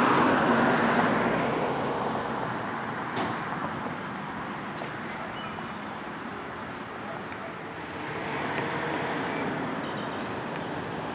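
Road vehicles moving slowly along a street make a steady rush of engine and tyre noise. It is loudest at the start and eases off over the first few seconds.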